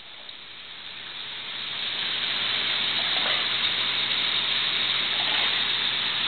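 Steady rush of running water from an aquarium's filtration, growing louder over about the first two seconds and then holding, with a low steady hum underneath.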